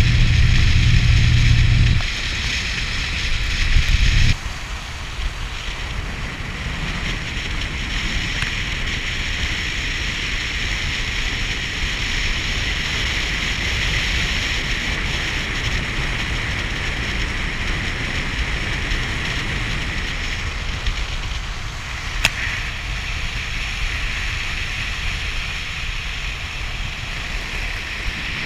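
Steady rush of wind on the microphone and water along the hull of a cabin cruiser under way, with a low rumble underneath. It is louder for the first two seconds, then drops, and a single sharp click comes about twenty-two seconds in.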